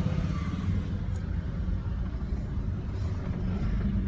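Steady low rumble of a moving car heard from inside the cabin: engine and tyre noise.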